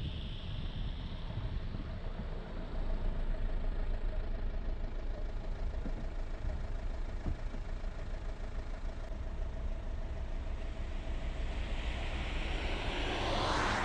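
Engine and road noise of a vehicle driving along a city street, heard from inside it: a steady low rumble with a faint steady hum in the middle, and a hiss that swells near the end.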